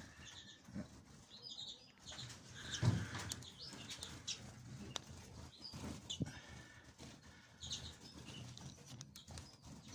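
Lesser redpolls fluttering their wings as they flit on and off a perch, with scattered short, high chirps.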